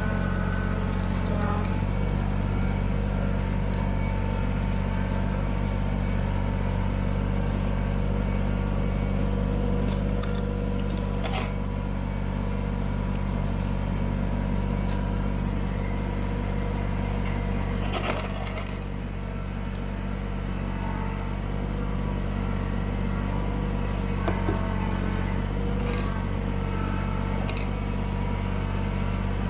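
Kubota BX25D sub-compact tractor's three-cylinder diesel engine running steadily under load while pushing a plow blade through snow, with a few short knocks partway through.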